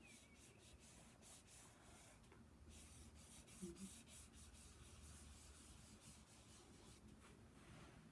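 Fingers rubbing soft pastel into drawing paper: a faint, scratchy hiss in many short, irregular strokes.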